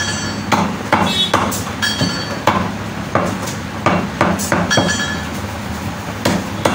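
Butcher's heavy knife chopping meat on a block: a quick, uneven run of hard chops about two a second, some with a short metallic ring from the blade.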